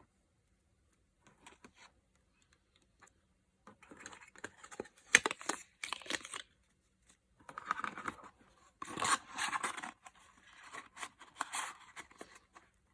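Packaging being handled and torn open, irregular crinkling and tearing in bursts that start about four seconds in after a near-quiet start.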